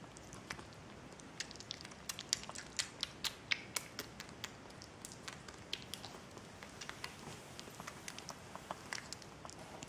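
Six-week-old kitten eating kitten food from a china saucer: an irregular run of small, sharp clicks and crunches of chewing, thickest and loudest a couple of seconds in, then sparser.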